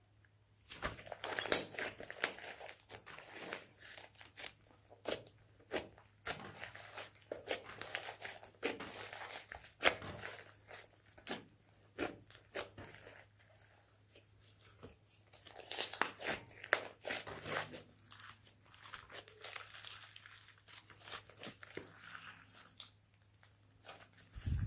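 Slime being squished, stretched and mixed by hand, giving a dense run of irregular crackles, clicks and squelches that starts about half a second in.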